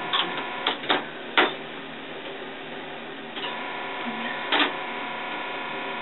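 Cord plugs being pushed into the jacks and keys clicking on an old cord-and-jack telephone switchboard: a handful of sharp clicks, the loudest about a second and a half in, over a steady hum.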